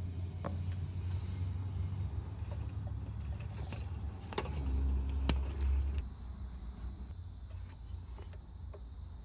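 A low rumble with a few sharp clicks and knocks. The rumble swells about halfway through, peaks with the loudest click, and drops off after.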